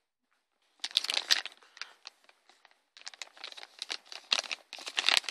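Clear plastic bag of toy parts on their runners crinkling as it is handled and turned over: a short spell about a second in, then a longer, denser spell from about three seconds on.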